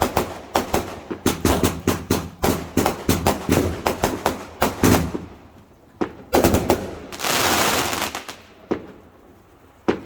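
Fireworks going off: a rapid string of sharp bangs, about five a second, for about five seconds. After a short pause come a few more bangs, a hiss of about a second, and a couple of single bangs near the end.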